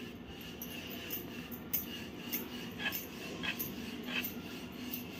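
Wooden rolling pin rolling stuffed dough on a flour-dusted wooden board: faint, repeated soft rubbing strokes with light taps, over a steady faint hum.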